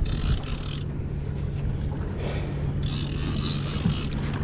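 Boat engine running steadily with a low hum, under a hiss of wind and water that swells at the start and again about three seconds in.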